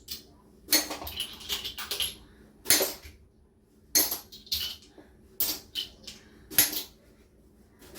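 Dishes and kitchenware being handled, with about a dozen sharp clinks and knocks at uneven intervals.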